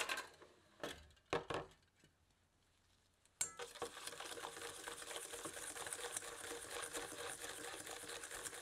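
A wire balloon whisk beating egg white and sugar in a stainless steel bowl: a fast, steady rattle of the wires against the metal, starting about three and a half seconds in. Before it, a few separate knocks as the steel bowl is handled.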